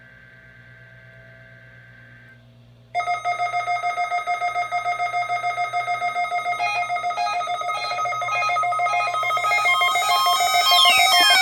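Several weather alert radios sounding their alarms together, set off by the weekly warning-alarm test. Faint steady tones come first, then about three seconds in a loud, rapidly pulsing electronic beep starts abruptly. More alarm tones join and it grows louder, with a falling siren-like sweep near the end.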